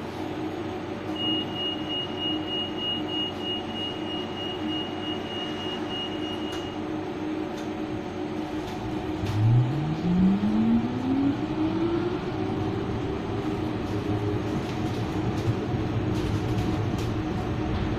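Interior of a BN T2000 tram: a steady high tone sounds for about five seconds, then about nine seconds in the traction motor whine starts low and rises smoothly in pitch as the tram accelerates, over the rumble of the car running on the rails.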